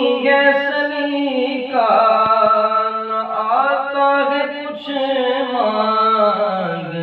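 A man singing a naat unaccompanied, drawing out long ornamented notes that bend up and down without a pause for words, then sinking lower near the end. The singing is recorded on a phone, without a microphone.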